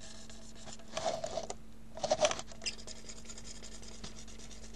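Scraping and rubbing handling noise close to the microphone, in two short bursts about a second and two seconds in, over a faint steady hum.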